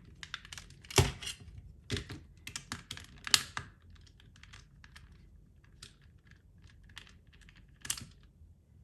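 Small sharp plastic-and-metal clicks from a screwdriver working a T9H security Torx screw out of an Xbox One controller's plastic case: a quick run of clicks with a few louder knocks in the first few seconds, then only scattered ticks.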